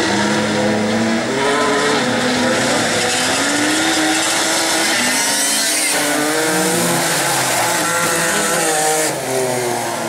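Several bilcross race cars' engines revving together, their pitches climbing and falling over one another as they race.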